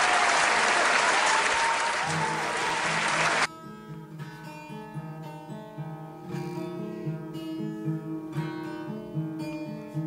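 Loud applause that cuts off suddenly about three and a half seconds in, with an acoustic guitar intro beginning underneath it and then playing on alone as single picked notes and chords.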